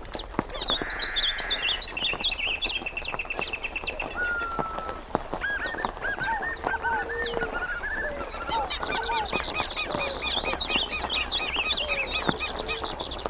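Many birds calling at once: overlapping chirps, short whistled notes and rapid trills.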